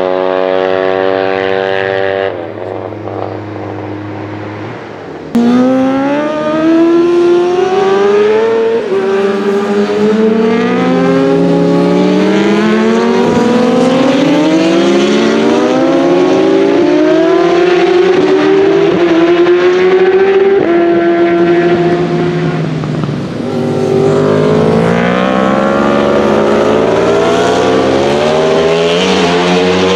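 Racing motorcycles running hard on track, engines accelerating through the gears: the engine note climbs, drops back at each upshift and climbs again, over and over. Early on the sound is quieter and steadier; about five seconds in it suddenly jumps louder.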